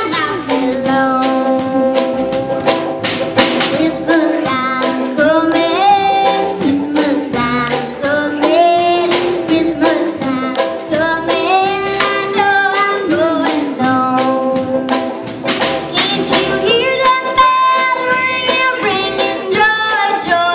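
A young girl sings a bluegrass Christmas song, holding long notes, backed by a small acoustic band of upright bass, mandolin and ukulele with plucked strings.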